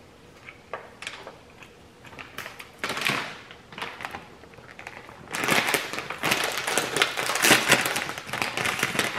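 A Rap Snacks plastic potato-chip bag crinkling as it is picked up, handled and pulled open. There is a louder burst about three seconds in, then dense, loud crackling from about five seconds in.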